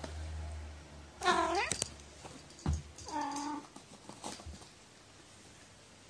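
Domestic cat meowing twice, one meow about a second in and another about three seconds in.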